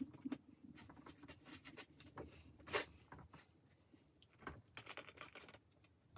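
Faint rustling and scratching of hands pressing loose soil substrate and moving pieces of cork bark inside a clear plastic enclosure, with a louder crunch about three seconds in.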